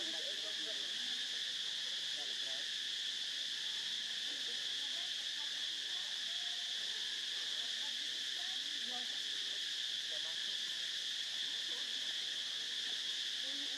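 Steady high-pitched insect chorus, an even unbroken drone with no change in level.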